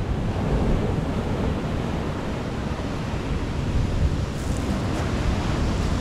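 Sea waves washing onto the beach, with wind rumbling on the microphone.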